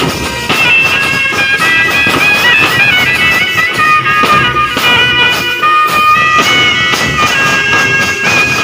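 Silver band playing: bass drums and side drums beating a steady rhythm under a high wind-instrument melody of stepped, held notes.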